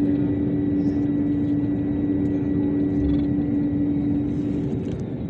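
Airliner engines running, heard from inside the passenger cabin during takeoff: a loud steady drone with a strong steady hum that drops out a little before the end.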